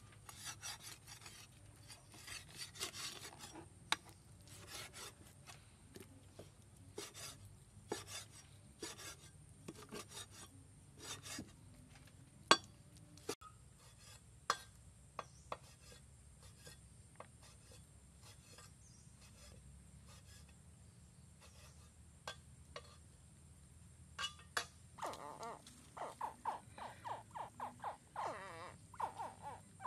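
Cleaver chopping and cutting beef ribs on a wooden chopping block: scattered sharp knocks with scraping in between, thinning out after the first half. Near the end, rapid repeated pulsing animal calls.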